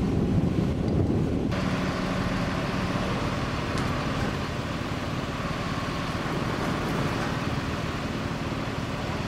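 Heavy machinery's diesel engine running steadily at a constant speed, a low rumble that changes abruptly to a fuller, brighter hum about a second and a half in.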